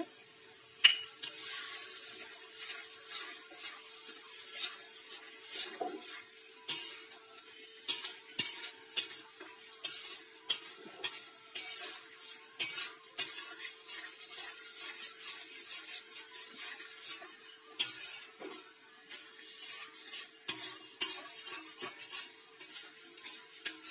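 A steel spatula stirring and scraping a thick spice masala in a metal kadai while the masala sizzles after a splash of water. Frequent sharp scrapes and clicks of the spatula against the pan ride over a steady frying hiss, with a faint steady hum underneath.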